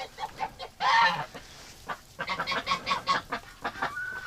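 A domestic goose honks loudly once about a second in, then the flock of geese and ducks keeps up a run of short, quick calls.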